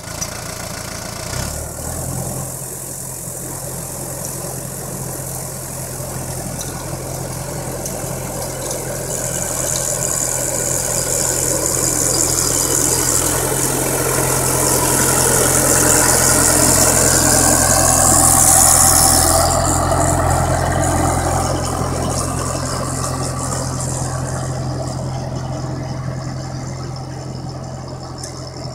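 New Holland tractor's diesel engine running steadily while it drives along the row pulling a Weed Badger rotary tiller through the soil. It grows louder as the tractor comes close, about two-thirds through, then fades as it moves away. A high hiss is heard while it is near.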